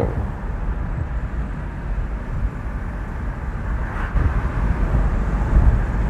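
Mercedes-Benz W126 420SEL driving along a back road: a steady low rumble of road and wind noise, with no distinct engine note.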